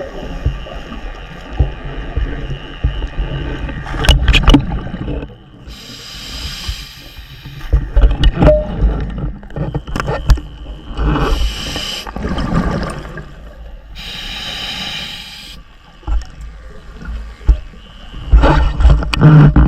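A scuba diver breathing through a regulator underwater: a hissing, whistling inhale about every four seconds, alternating with loud, low bubbling as exhaled air vents from the regulator.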